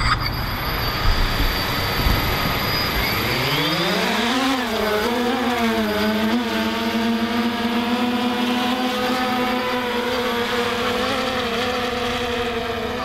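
Thunder Tiger Ghost+ quadcopter's four motors and 11-inch propellers spinning up: after a few knocks, a hum rises steeply in pitch about two and a half seconds in, wavers as the quad lifts off, then settles into a steady hover.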